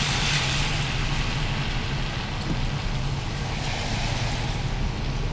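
Car driving slowly: a steady low engine hum under tyre and road noise.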